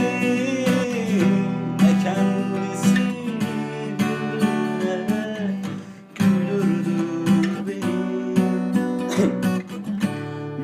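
Acoustic guitar playing an instrumental passage of strummed chords and melody. It falls briefly quiet about six seconds in, then picks up again.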